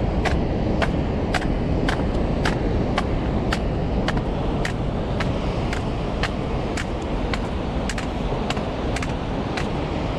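Footsteps on a cobbled stone path at a steady walking pace, sharp clicks about two a second, over a steady low rush of wind and surf.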